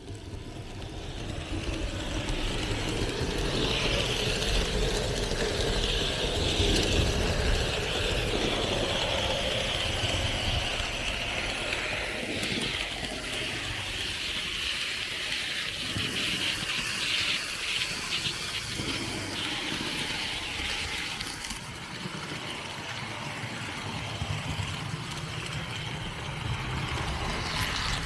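Märklin H0 model train running on the layout's track: a steady rolling rattle of wheels on rails with a high whine, growing louder over the first few seconds.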